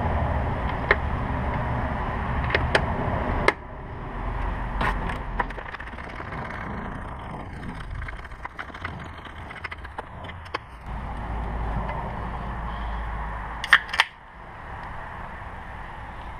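Scattered sharp clicks and taps of hand tools and parts being worked, over a steady background hiss that drops abruptly about three and a half seconds in; a pair of clicks comes near the end.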